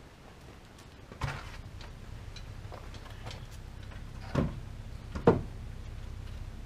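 A few sharp wooden knocks and clunks from pallet boards and lumber being handled and set in place on a pallet wall frame. The loudest two come close together near the end, over a low steady hum.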